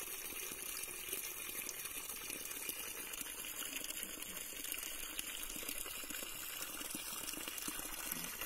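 Running water flowing steadily with an even rushing sound.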